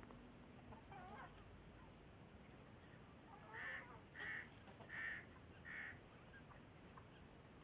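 A chicken calling four times in short, separate calls about three-quarters of a second apart, starting about halfway through, with a faint call earlier on.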